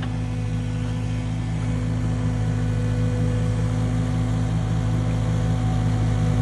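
The diesel engine of a 10-ton Cat excavator running steadily under hydraulic load while it works its arm and ditching bucket. It grows slowly louder.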